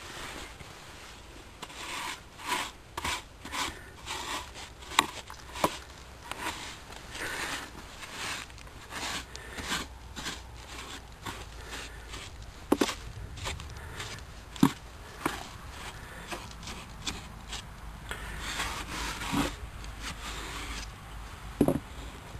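Wooden parts of a top-bar beehive being handled: repeated rubbing and scraping of wood on wood, with a few sharp knocks.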